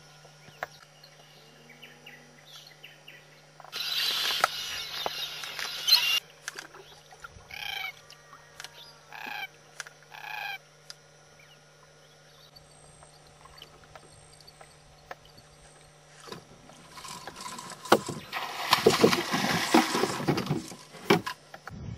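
Black cockatoo calling: three short, harsh calls about a second and a half apart, some eight to ten seconds in. Around four seconds in, a two-second burst of hiss-like noise, and near the end several seconds of rough rustling noise with knocks.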